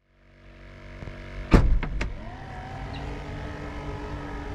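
Aerator pump of a Frabill aerated bait bucket humming steadily with a whining tone that rises and then holds. A few sharp knocks sound together about a second and a half in.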